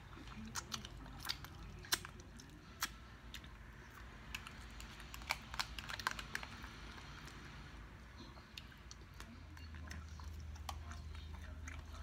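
Close-up eating sounds: chewing with wet mouth clicks and smacks. Sharp clicks come scattered throughout, busiest in the first few seconds and again around the middle.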